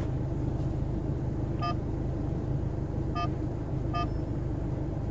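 Three short electronic beeps from the QCY V20 Pro mirror dashcam's touchscreen as it is tapped: one a little under two seconds in, then two more about three and four seconds in. Under them runs a steady low rumble of the car's engine idling.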